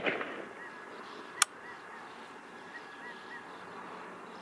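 The echo of a 6.5 Grendel rifle shot fired through a muzzle brake, rolling away and fading over the first half-second. About a second and a half in, a single short sharp crack, followed by faint short chirps.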